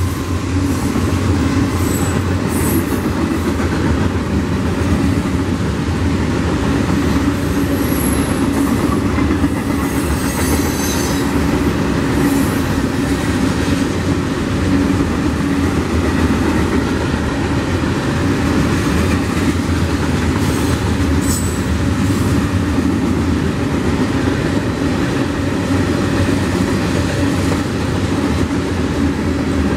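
Covered hopper cars of a freight train rolling past: a steady rumble of steel wheels on rail, with a few brief high wheel squeals.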